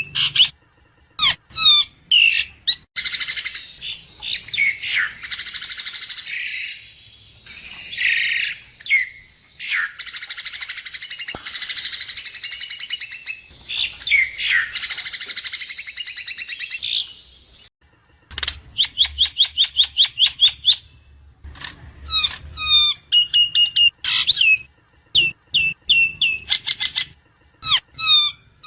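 Javan myna calling: long stretches of harsh, raspy chattering, then quick runs of short repeated sharp notes mixed with clear whistles in the second half.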